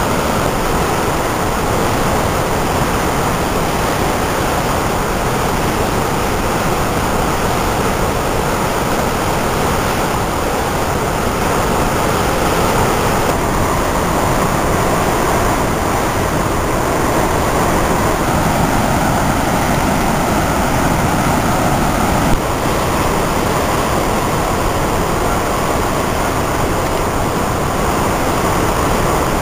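Missouri River floodwater pouring through all 14 open spillway gates of Gavins Point Dam and crashing into churning whitewater below, a record flood release: a loud, steady rushing roar.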